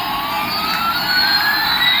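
Electronic jet-engine sound effect from a toy Airbus A380 airliner: a steady hissing roar with a whistling tone that rises slowly.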